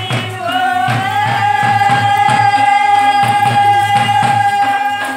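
A song with a steady beat, the singer holding one long high note from about a second in.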